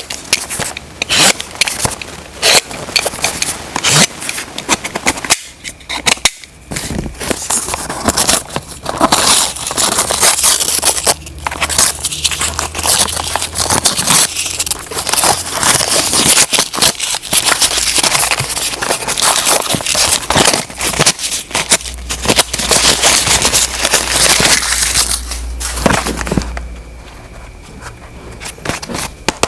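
Close-up handling noise: dense, irregular crackling, clicking and scraping of objects being handled and rubbed. It drops away about three seconds before the end, leaving a faint steady hum.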